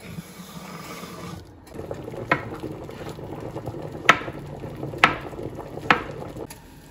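Chef's knife cutting on a wooden cutting board: four sharp knocks of the blade striking the board, about a second apart, over a steady low hiss.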